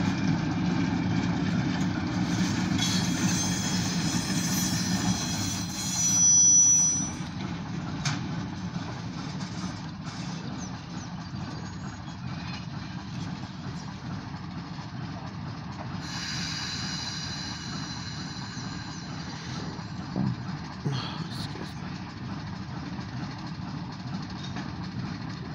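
Short freight train of grain hoppers at a distance, heard from inside a car: a steady low rumble with high squeals from about three to seven seconds in and again past the middle, and a brief loud swell around six seconds.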